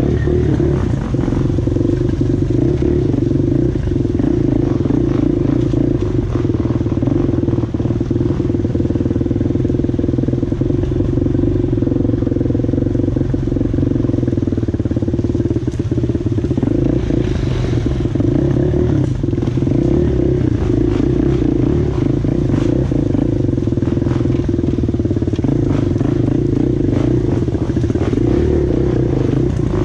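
ATV engine running steadily and loud, its pitch holding nearly constant, with small scattered knocks and a brief hiss about halfway through.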